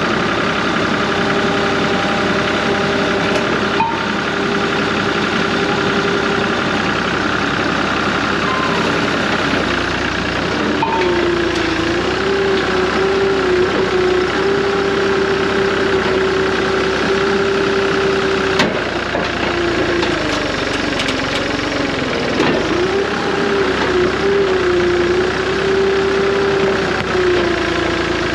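Skid steer's diesel engine running hard at high revs while the machine is driven to spin it free of deep mud, its pitch dropping under load and recovering several times in the second half.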